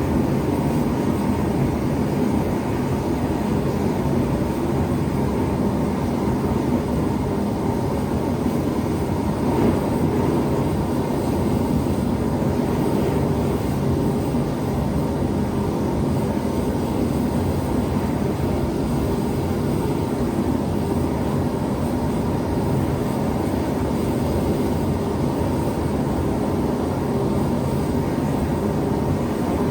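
Gas forge burners running steadily, a constant rushing noise with a faint hum.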